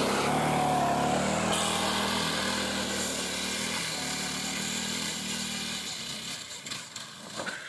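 A go-kart's small engine runs at speed as the kart drives away across the grass, growing fainter with distance over the last couple of seconds.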